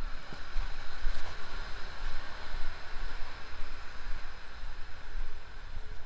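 Outdoor city street ambience: an even hiss of traffic and town noise, with a fluctuating low rumble of wind buffeting the action camera's microphone.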